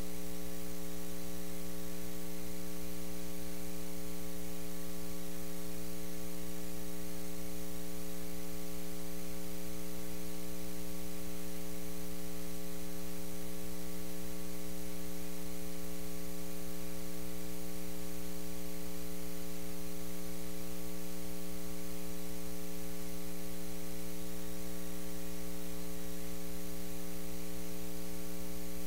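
Steady electrical mains hum in the audio feed: a constant buzz of several evenly spaced tones that does not change, over a light hiss.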